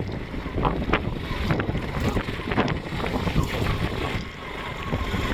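Wind buffeting the microphone over a motorcycle riding along a rough road, with scattered irregular knocks and rattles.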